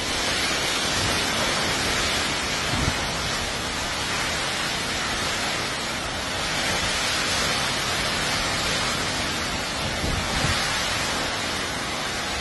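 Category 4 hurricane wind and heavy, wind-driven rain: a steady rushing noise that swells slightly about three seconds in and again around ten seconds.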